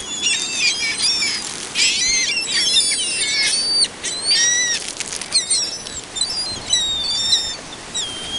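A flock of ring-billed gulls calling, many short, high, overlapping cries, some of them falling in pitch, as they crowd in for food, with wings flapping among them.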